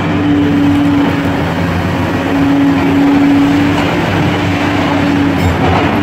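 Caterpillar 336D hydraulic excavator running close by: a steady diesel engine drone under a high hydraulic whine. The whine shifts slightly in pitch and breaks off a few times as the boom and bucket move.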